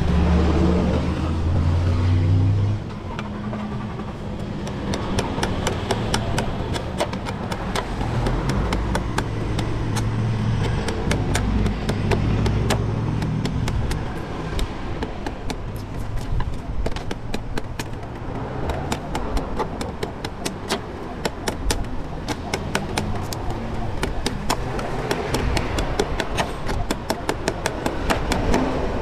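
Large knife chopping and shaving the husk of a young coconut against a wooden block: quick, irregular strikes, several a second, over a steady low rumble of traffic. A loud engine rumble fills the first few seconds, then drops away.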